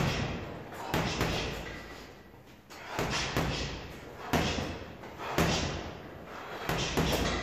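Boxing gloves striking a heavy punching bag: lead-hand jabs landing as sharp thuds, singly and in quick doubles about once a second, each ringing briefly in the hall.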